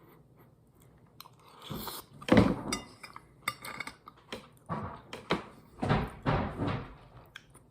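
Close-up eating sounds: a fork clinking and knocking in the meal's tray, then chewing of the shrimp alfredo pasta, in uneven bursts that start about a second in.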